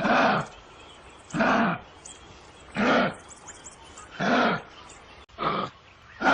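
An animal calling over and over: loud calls about half a second long, repeated evenly about every second and a half, five times.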